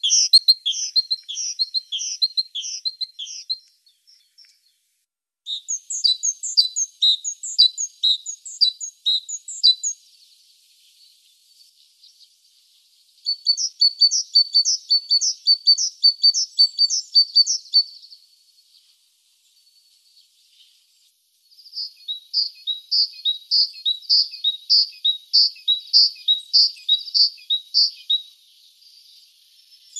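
Great tit singing: four bouts of quickly repeated high two-note phrases, each a few seconds long, separated by short pauses.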